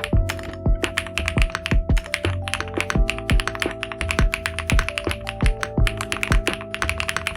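Fast typing on a Hippo65 gasket-mounted aluminium mechanical keyboard with Huano Orange linear switches, keys clacking in quick, irregular strokes. Background music with held notes plays underneath.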